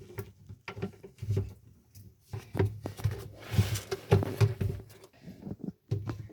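Irregular light knocks and thumps from objects being handled and set down on a surface, with a short rustle about three and a half seconds in.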